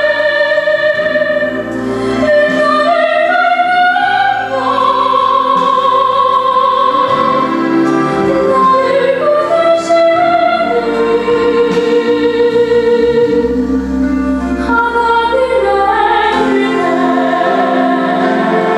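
A woman singing a Korean gospel song solo, amplified through a handheld microphone, holding long notes with vibrato over soft instrumental accompaniment.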